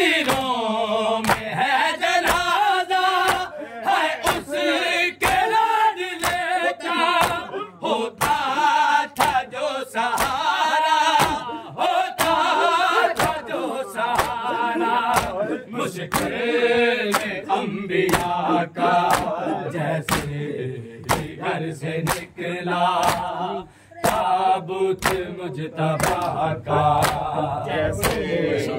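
A group of men chanting an Urdu noha lament together, over a steady beat of sharp hand-on-chest matam strikes coming a little faster than one a second.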